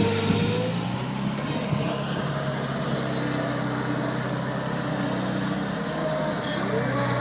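Bobcat 743 skid steer loader's diesel engine running steadily under work, with a wavering whine that rises and falls over it.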